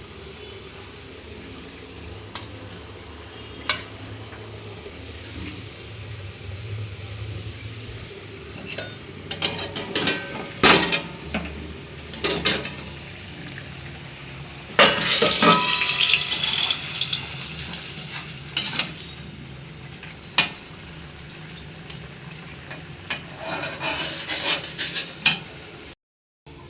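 A cooking utensil knocking, clinking and scraping against a pan while food cooks. About fifteen seconds in, a loud sizzle starts suddenly and fades away over a few seconds.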